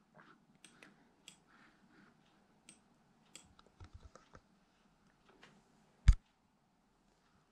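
Scattered faint clicks of someone working a laptop, with one louder knock about six seconds in.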